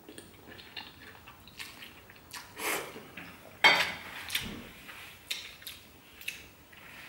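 Close-up eating sounds: noodles being slurped and chewed, with light clicks of chopsticks against a plate. A louder short rustle a little past halfway as a paper tissue is taken up and used.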